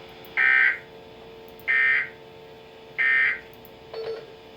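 Emergency Alert System end-of-message signal: three short, identical bursts of warbling SAME digital data tones, about a second and a third apart, marking the end of the severe thunderstorm warning. A faint steady hum sits under them.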